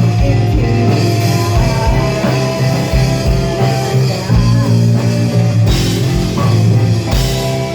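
Rock music with electric guitar, drums and singing, a steady kick-drum beat about twice a second.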